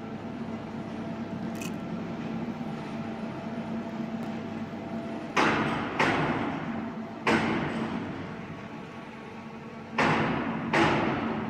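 Steady hum of a running small metal-melting furnace, with five sudden knocks in the second half, the first three close together, each fading over about a second.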